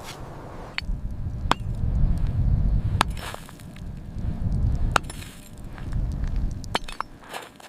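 About five sharp knocks or clinks at irregular spacing, over a low rumble that swells and fades twice.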